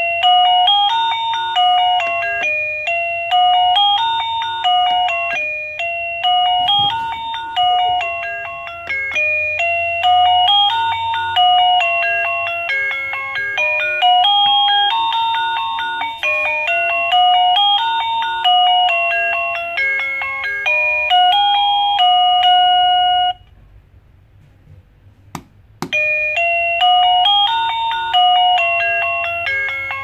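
OPEX DB-3048 wireless doorbell receiver playing an electronic chime melody through its speaker, a quick run of short beeping notes. Near the end it stops for about two seconds, a single click sounds, and a tune starts again.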